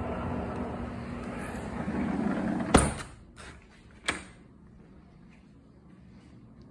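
Outdoor air-conditioner condenser unit running with a steady hum, then a door shuts with a loud bang about three seconds in, cutting the hum off, followed by a lighter knock about a second later.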